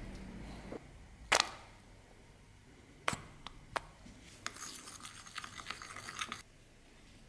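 A stick scraping rapidly around a plate, stirring two blobs of glue together, a run of quick scratchy strokes that stops suddenly. A few sharp clicks come before it.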